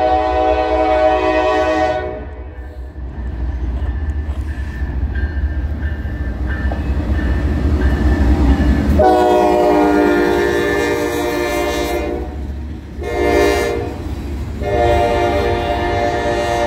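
Norfolk Southern freight train led by an AC44C6M diesel locomotive passing close by: its horn sounds in several long blasts, with the deep rumble of the locomotives going by between them, loudest about halfway through. Double-stacked container cars then roll past as the horn sounds again near the end.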